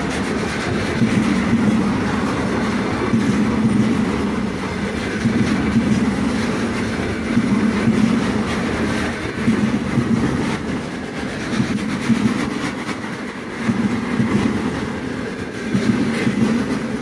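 Loaded container flatcars of a freight train rolling past: a steady rumble of steel wheels on the rails with clickety-clack. The rumble swells and fades again and again as the wagons go by.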